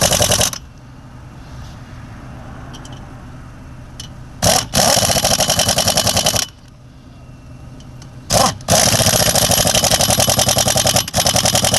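Impact wrench running lug nuts onto a wheel in three rapid-hammering bursts: a short one at the start, then two longer runs of about two seconds each, the last one as the nuts are run down tight.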